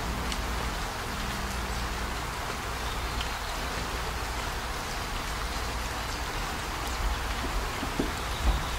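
Steady rain falling, an even hiss throughout, with a few soft knocks near the end.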